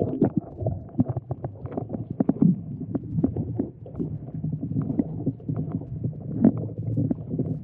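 Muffled underwater sound picked up by a submerged action camera: a low rumble of moving water with frequent irregular knocks and clicks.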